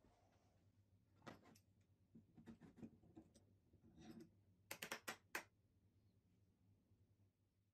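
Faint clicks and light knocks of plywood strips and a metal MFT bench hold-down clamp being handled, then, about five seconds in, a quick run of sharper metal clicks as the clamp's lever is pressed down and locks onto the stack.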